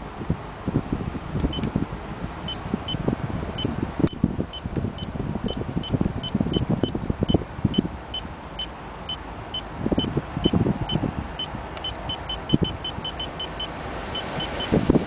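Short high beeps from the Lexus GX's dashboard climate control, one for each press of the temperature button as the setting is stepped down toward max cold, coming faster near the end. Under them runs a low cabin rumble with scattered knocks.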